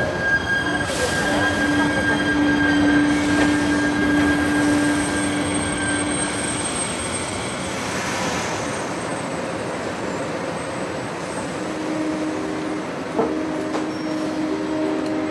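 A passenger train pulling into a station, its wheels rumbling, with a steady high-pitched squeal for several seconds in the first half as it brakes.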